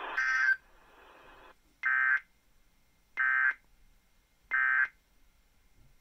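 Emergency Alert System end-of-message: short bursts of warbling SAME digital data tones, each about half a second long and about 1.3 s apart, played over a computer's speaker after a severe thunderstorm warning. The first burst comes right at the start and has more high pitch than the three identical bursts that follow it.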